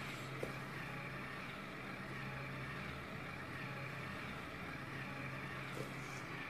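Steady low machine hum, even and unbroken, with a faint click near the end.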